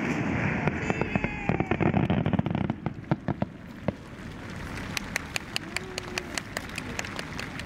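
Fireworks from a giant three-shaku (sanshakudama) aerial shell: a rolling rumble with many sharp cracks as the burst echoes, fading after about three seconds into a run of separate sharp pops, about four or five a second.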